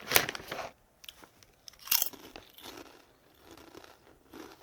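Honey Butter Chip potato chips crunching as they are bitten and chewed, with a sharp crunch just after the start, another about two seconds in, and quieter chewing between.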